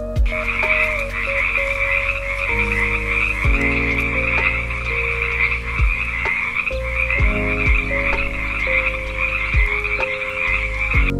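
A steady, dense chorus of many frogs croaking.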